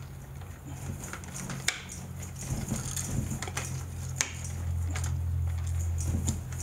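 Stiff electrical wires, wire nuts and a wall switch being pushed back into a plastic electrical box: scattered clicks and scrapes. Under them runs a steady low hum that grows louder in the second half.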